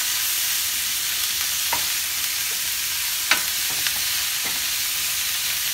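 Sliced onions, green peppers and sausage sizzling steadily in a hot stainless steel skillet while being stirred with a wooden spatula, which knocks against the pan a few times. The strong sizzle is the sign of a well-preheated pan.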